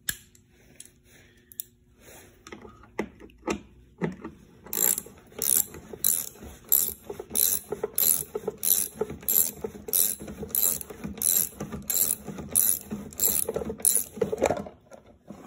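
Half-inch socket wrench ratcheting as it backs out the wheel bolt on a Honda self-propelled lawnmower: a few scattered clicks at first, then sharp clicks in a steady rhythm, about two a second, that stop near the end.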